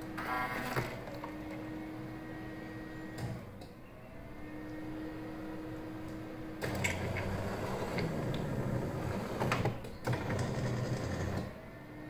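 Dr.coffee H10 automatic coffee machine working at the end of a cappuccino cycle. A steady low hum stops and restarts, then a louder, rough, noisy run of the machine lasts about five seconds.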